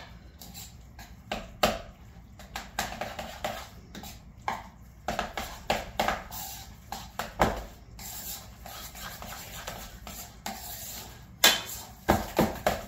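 A spoon stirring and scraping a thick cheese and egg filling in a mixing bowl: irregular soft knocks and scrapes, with a few sharper knocks near the end.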